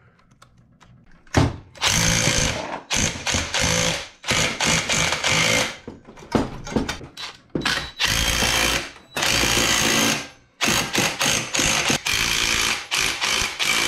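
DeWalt 20V cordless impact driver hammering in repeated bursts of one to two seconds, tightening the hub nut on a saw-blade wheel. It starts about a second and a half in.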